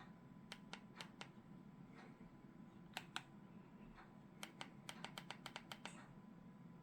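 Small plastic remote-control buttons clicking as they are pressed: a few single presses, then a quick run of about nine clicks, against a quiet room.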